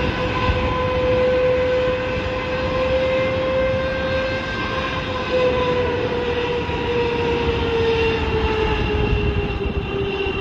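Boeing 777-300ER's GE90 turbofan engines running at high thrust: a loud, steady jet roar with a whine that slowly falls in pitch over the second half.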